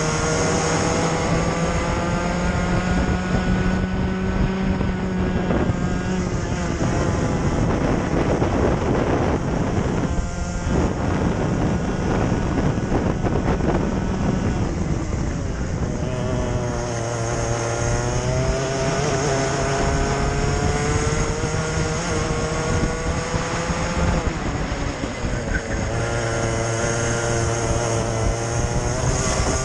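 Onboard sound of a racing kart's two-stroke engine under load, its note climbing for several seconds at a time and dropping as the kart slows for corners, with wind rushing past.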